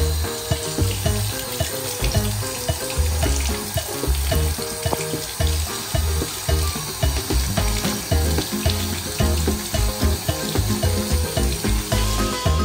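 Tap water running into a sink as a steady hiss, with background music and a regular beat playing over it.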